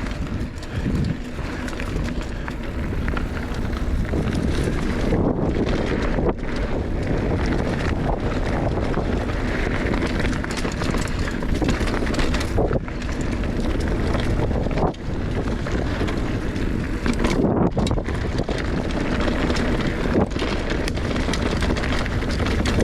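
Mountain bike riding down a dry, sandy dirt trail: steady wind rush on the microphone over the rolling tyre noise, with a few sharp knocks from the bike over the bumps.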